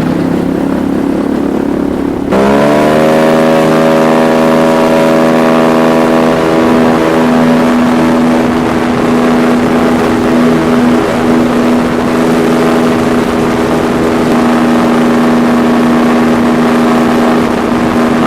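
Paramotor engine and propeller running low, then throttled up sharply about two seconds in, the pitch climbing quickly and holding steady at full power for a foot launch.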